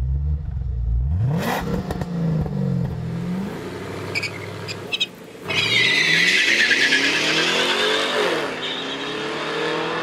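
Two V8 cars, a Ford Mustang GT and a Holden Commodore SS-V Redline, rev and then accelerate hard down a drag strip. The engine note climbs, drops at an upshift about eight seconds in, and climbs again, with a high-pitched squeal as they pull away.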